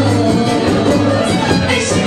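Live band playing Romanian folk dance music, with keyboard.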